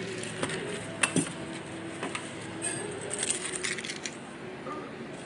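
Light clicks and clinks of small hard objects being handled: a few separate clicks in the first two seconds, then a short run of rattling clinks about three seconds in.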